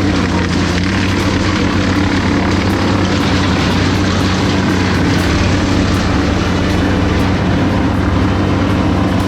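A motor running steadily at a constant speed, with a dense hiss over its hum, from the crew's tree-work machinery.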